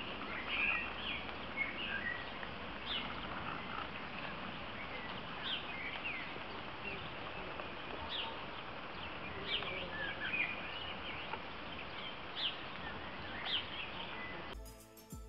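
Steady hiss of light rain falling on a flooded stream, with birds chirping repeatedly over it. Near the end it cuts abruptly to music.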